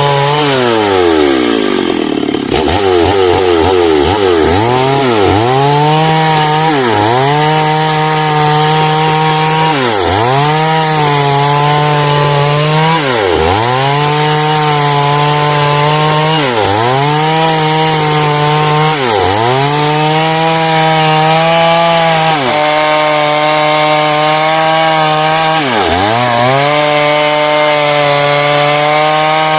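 Chainsaw running at full throttle while cutting lengthwise through heartwood timber. Its engine pitch sags under the load and climbs back about every three seconds.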